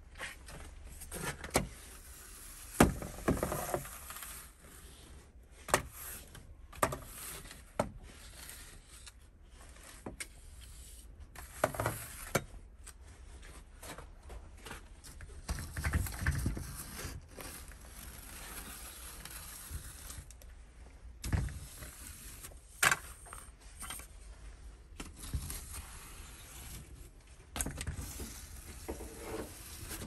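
Scattered knocks, clicks and rustling scrapes, the loudest a sharp knock about three seconds in. Near the end, a denser scraping as a long-handled snow brush is pushed over the snow-covered metal door grille.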